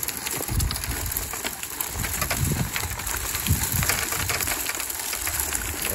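Bag-A-Nut rolling nut harvester pushed over grass, its flexible finger cage picking up pecans and dry leaves: a dense run of clicking, rattling and crunching as the nuts are lifted into the wire basket.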